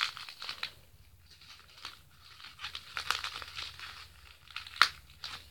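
Plastic bubble wrap crinkling and crackling as hands grip and press a wrapped parcel, in irregular bursts, with one sharper, louder crackle a little before the end.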